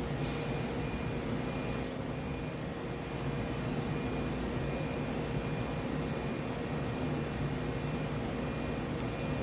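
TIG welding arc running steadily: an even hiss with a steady electrical hum.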